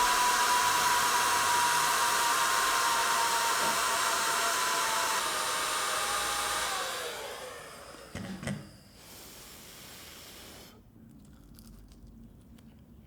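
Metabo HG 18 LTX 500 cordless hot air gun blowing, a steady rush of air with a fan whine. About seven seconds in it is switched off and the fan winds down in a falling whine, followed by a couple of knocks and a fainter hiss that stops near eleven seconds.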